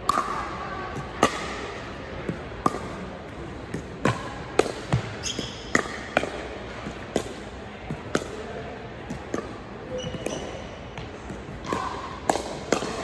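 A pickleball rally: about a dozen sharp pops of paddles striking the plastic ball at irregular intervals, with the ball bouncing on a hardwood gym floor, ringing in a large gym.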